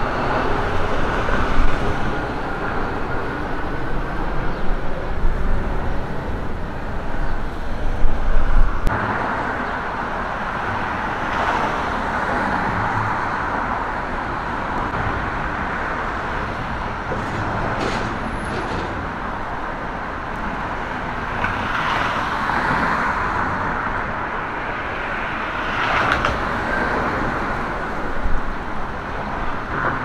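Road traffic on the street, cars driving past in swells over a steady traffic roar. A heavy low rumble with loud peaks runs through the first nine seconds and stops abruptly.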